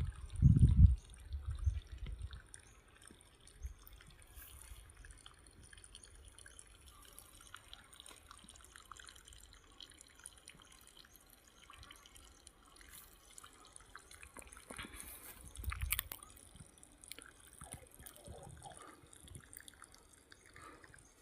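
Water trickling and dripping from the open end of a disconnected pipeline, a faint run of small drips and splashes. A few heavy low thuds in the first second, and a brief louder splash about fifteen seconds in.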